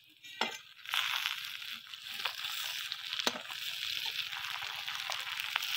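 Fried fish head going into a wok of hot mustard oil with onions and green chillies, sizzling steadily from about a second in. A metal spatula clicks against the wok a few times.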